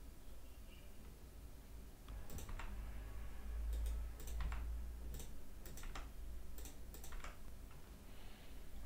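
Computer keyboard keys and mouse buttons clicking, about a dozen scattered clicks starting about two seconds in, made while merging mesh vertices in Blender.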